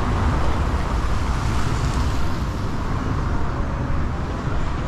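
Steady rumble of road traffic on a city street, cars passing, with no single event standing out.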